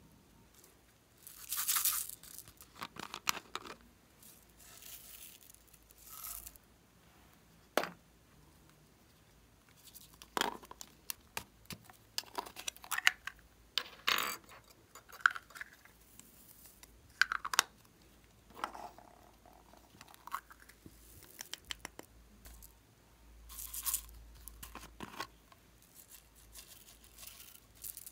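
Close, irregular handling sounds from slime-making: a plastic spatula scraping in a glass baking dish, small plastic bottles being picked up and handled, and sprinkles and glitter beads shaken out to patter into the dish, with a few sharp clicks between.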